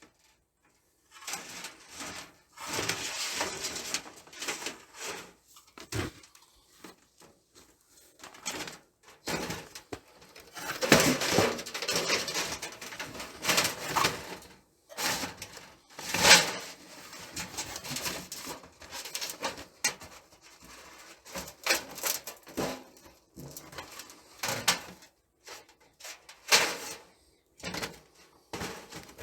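Parts of a thin titanium camp stove being handled and fitted together: irregular clatter, scraping and rustling, with a few sharper metallic knocks.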